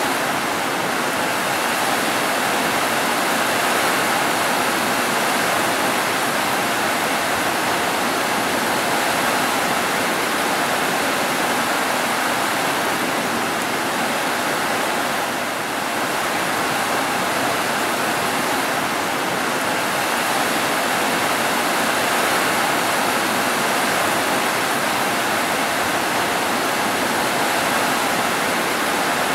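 Steady rain falling, a dense, even hiss with no thunder, easing very slightly about halfway through.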